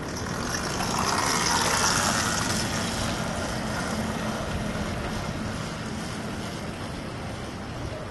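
Zero S electric motorcycle passing close by and riding away: a hiss that swells to its loudest about two seconds in and then fades.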